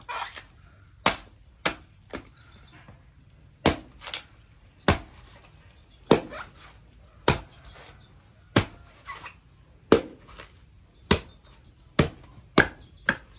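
A hand-forged knife chopping into the husk of a young coconut, one sharp chop after another, about a dozen blows at an uneven pace of roughly one a second.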